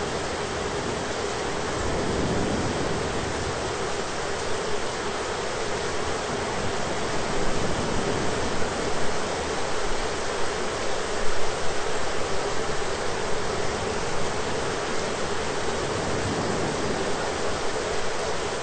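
Steady thunderstorm rain, a thick even hiss with no breaks, swelling a little in uneven gusts through the middle.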